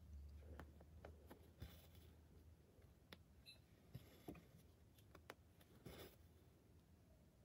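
Faint sounds of hand cross-stitching on 18-count Aida cloth: soft clicks of the needle piercing and tapping the fabric, and a few short brushing sounds as the floss is drawn through.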